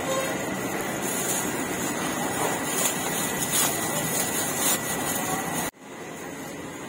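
Steady street and market background noise, a mix of traffic and bustle, with a few small clicks. It drops off abruptly near the end to a quieter hum.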